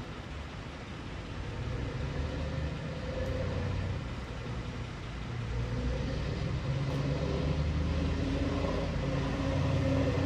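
A motor vehicle's engine running with a low rumble, getting louder over the second half.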